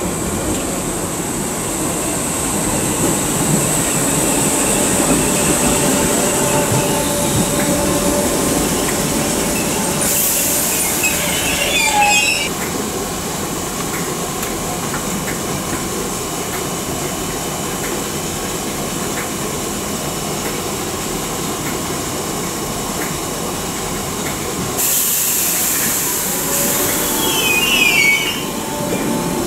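Merseyrail Class 507/508 electric train running at a station platform: a steady running noise with a high thin whine in the first few seconds. Twice, about a third of the way in and again near the end, comes a sudden burst of hiss lasting a couple of seconds that ends in a short falling squeal.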